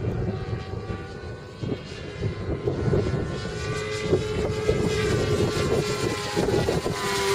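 Seagull Pilatus PC-9 radio-controlled model airplane in flight, its motor and propeller making a steady drone whose pitch drifts slowly as it moves past.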